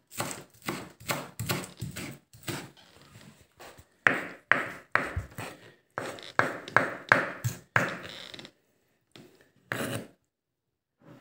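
Chef's knife chopping hard-boiled egg white and dill on a wooden cutting board: a quick run of knocks, about three a second, stopping about ten seconds in.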